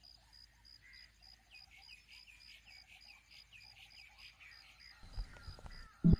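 Quiet outdoor ambience of an insect, like a cricket, chirping steadily about five times a second, with a run of short, quick falling chirps in the middle. About five seconds in a low boom swells, and loud rhythmic background music kicks in at the very end.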